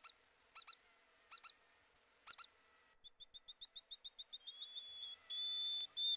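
High-pitched animal chirps: a few short chirps, mostly in pairs, then a quick run of high peeps, about six a second, that grows louder and runs into a held high note near the end.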